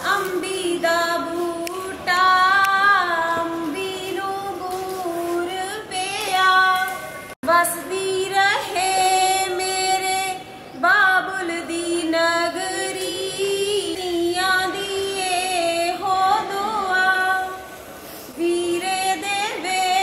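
Background song: a woman singing long, sliding, ornamented held notes over a light accompaniment, with a brief cut-out about seven seconds in.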